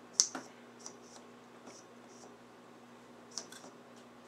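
Faint scattered clicks and taps from handling a Leslie two-speed upper motor, its spring-loaded slow motor being pushed in and springing back. The sharpest click comes just after the start, and a faint steady hum runs underneath.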